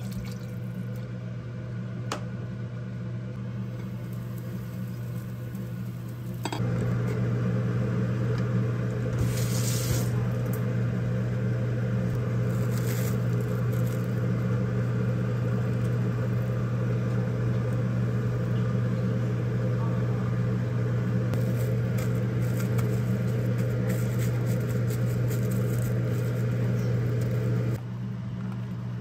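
A steady mechanical hum, joined about six and a half seconds in by a louder, even hiss that stops shortly before the end.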